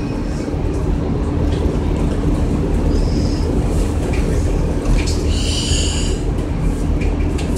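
Interior of a 2002 Orion VII CNG transit bus under way: steady low engine and road rumble with a steady drone underneath. A short high-pitched tone sounds about three seconds in, and a brief cluster of high wavering tones around five and a half seconds in.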